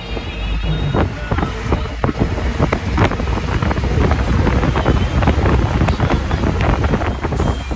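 Road noise from a moving vehicle, a steady low rumble with frequent knocks and rattles, and wind buffeting the microphone.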